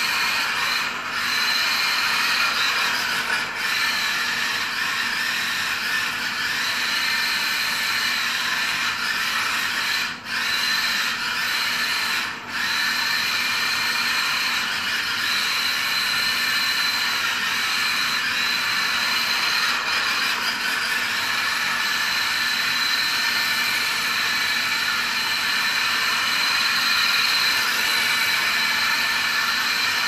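Electric motor and drivetrain of a homemade RC skid steer, built on a cut-down 1/12-scale RC drift car chassis, whining steadily under throttle as it drifts with its tyres sliding on the floor. The sound dips briefly twice near the middle.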